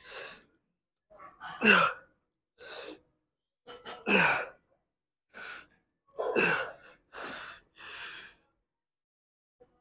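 A man breathing hard through seated cable rows: sharp breaths in and forceful breaths out, three of them loud with a short falling grunt about every two seconds. The breathing stops about eight seconds in.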